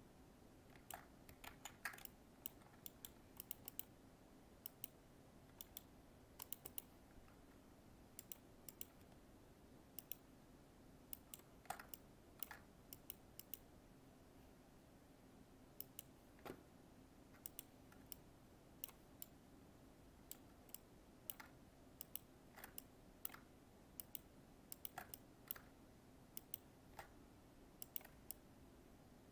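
Scattered sharp clicks of a computer mouse and keyboard, often in quick pairs or small clusters, over a faint steady low hum.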